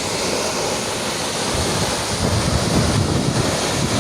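Waterfall rushing in a steady roar of water, with wind buffeting the microphone in low rumbles through the middle.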